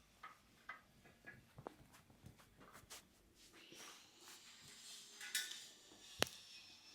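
Barber's hands rubbing and tapping on a customer's head and hair during a head massage: soft rustles and light ticks, with one sharp click about six seconds in.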